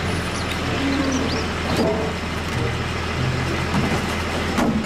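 Steady running noise of a heavy vehicle, an even noise over a low hum, with a few faint short squeaks scattered through it.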